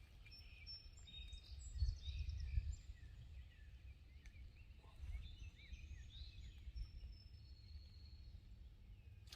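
Songbirds chirping and calling faintly, many short high chirps, over a low wind rumble on the microphone that swells about two seconds in.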